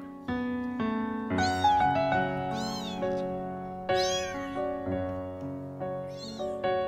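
A young kitten meowing four times: short high cries that rise and fall in pitch, over piano background music.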